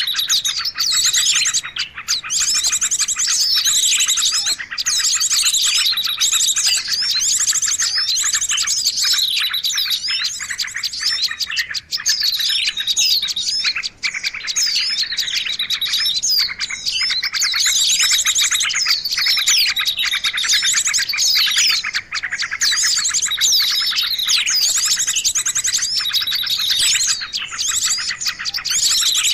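Dense, high-pitched chirping and rapid trills of small songbirds, played as a lure call to attract small wild birds. Falling chirp phrases repeat about every two seconds over a steady buzzy trilling.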